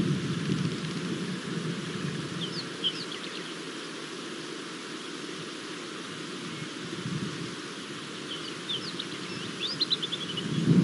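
Outdoor waterhole ambience: a low steady rumble with short, high bird chirps in quick clusters, once about two and a half seconds in and again over the last two seconds.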